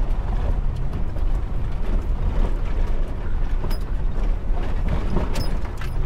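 Holden HK on the move, heard from inside the cabin: a steady low rumble of engine, tyres and wind through the open window, with a few light ticks about two-thirds of the way through and near the end.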